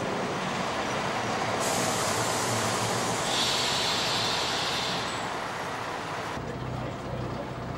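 DR class 171 (VT 2.09) diesel railbus rolling along the platform with a brake hiss a little past the middle, then settling to a steady low diesel idle once it has stopped, about six seconds in.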